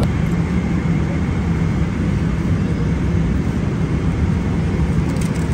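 Airliner cabin noise in flight: a steady low drone of engine and rushing air.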